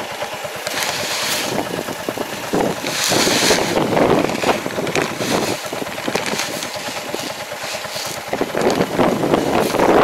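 Tractor engine running at idle, with wind buffeting the microphone and a hiss about three seconds in as granular fertilizer is poured from a bag into the sower's hopper.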